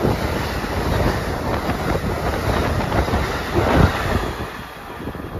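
Amtrak Amfleet passenger coaches rolling past, steel wheels rumbling and clattering on the rails. The sound peaks a little before the end, then fades as the last car clears.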